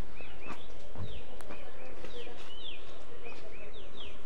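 Birds chirping steadily in quick, repeated high notes that sweep downward, with a few footsteps on a tiled walkway, one heavier step about a second in.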